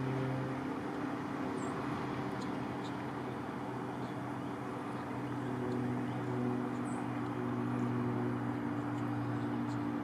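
A motor running steadily, a low droning hum whose pitch drifts slightly, with a couple of faint high chirps.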